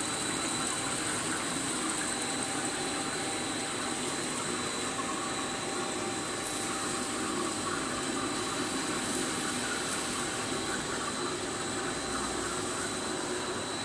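Wood-plastic composite fence panel extrusion line running: a steady mechanical hum and hiss with a thin, constant high whine.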